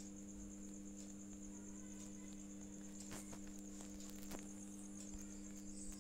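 Faint steady background hum with a high, pulsing whine above it, and a few soft clicks about three and four seconds in.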